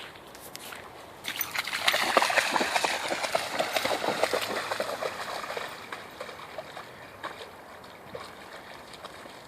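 Rapid splashing through shallow floodwater on a trail. It starts about a second in, grows loud for a few seconds, then fades away to occasional small splashes.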